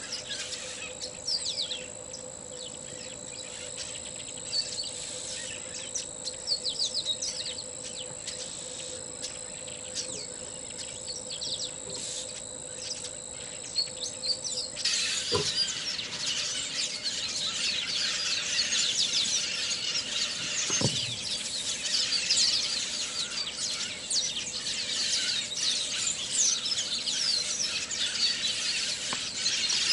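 Birds chirping over a steady high-pitched insect drone. About halfway the drone stops and a dense chorus of many short bird chirps takes over, with two brief falling sweeps in it.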